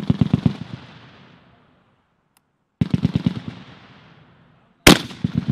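M2 .50-calibre heavy machine gun firing three short bursts of about five to seven rounds each, each burst rolling away in echo. The third burst opens with an especially loud shot near the end.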